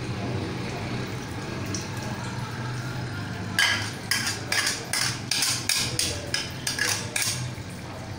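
A metal spoon knocking against a plastic yogurt cup as yogurt is scraped out into a karahi: about a dozen sharp taps in quick succession, starting a few seconds in. A steady low hum runs underneath.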